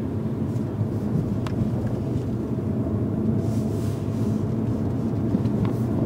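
Volkswagen Golf GTI Mk7's turbocharged 2.0-litre four-cylinder running steadily at low revs while driving, with tyre noise on a wet road, heard from inside the cabin. The engine is still cold.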